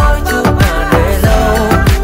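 Background pop music with a steady beat: deep bass hits that fall in pitch, under a melody.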